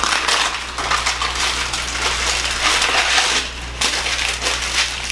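Aluminium foil crinkling and crackling in irregular bursts as potatoes are handled and wrapped in it.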